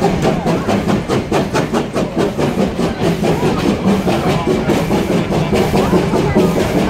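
Steam train under way, heard close behind the locomotive: steady rhythmic chuffing and rail clatter over a continuous low rumble.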